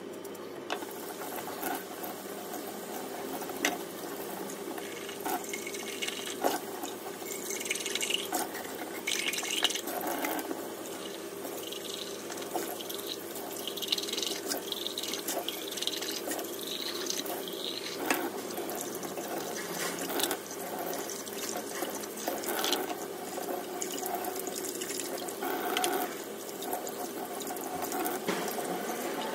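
Water running from a kitchen tap into a stainless steel sink while plastic baby-bottle and breast-pump parts are scrubbed with a bottle brush and rinsed. Frequent small knocks and clatters of the plastic parts against each other and the sink.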